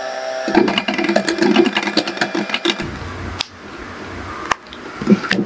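Electric hand mixer running, its motor humming steadily while the beaters rattle and click in a glass bowl. The mixer stops about three seconds in, followed by a few light knocks and soft handling sounds.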